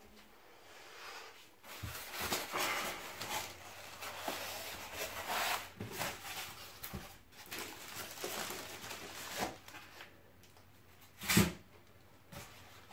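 Polystyrene foam packing blocks squeaking and scraping as they are pulled off an amplifier, with plastic wrap rustling, in irregular bursts. One brief louder bump near the end.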